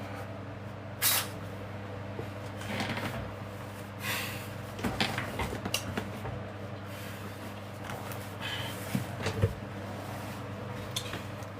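Scattered knocks and clicks of things being handled, over a steady low electrical hum.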